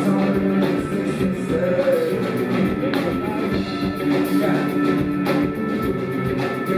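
A rock band playing live, an instrumental passage with a steady drum beat under sustained pitched parts.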